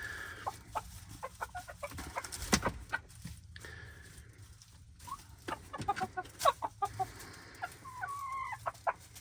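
Polish chickens clucking and chirping in short, scattered notes, with one longer wavering call near the end. A single sharp tap sounds about two and a half seconds in.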